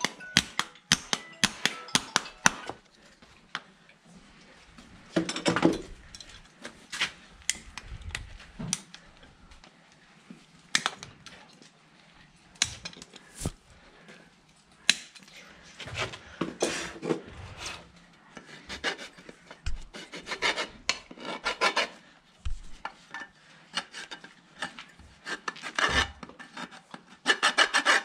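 Farrier's hoof rasp scraping across a horse's hoof in bursts of short strokes, mixed with clicks and scrapes of metal hand tools against the hoof and horseshoe.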